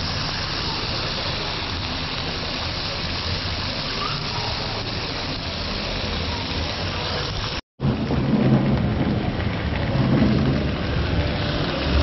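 Meat sizzling on a hot grill, a steady dense hiss, broken by a brief silent cut about two-thirds through.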